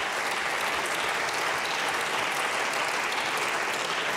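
Members of parliament applauding steadily in a large chamber.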